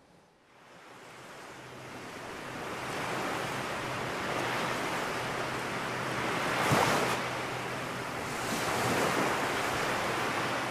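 Sea waves washing in, fading up from quiet over the first few seconds, with louder surges about two-thirds of the way through and again near the end.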